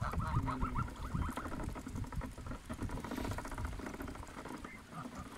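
A flock of domestic geese making soft, quick, low chattering calls, thickest in the first couple of seconds and thinning out after, with light rustling in the grass.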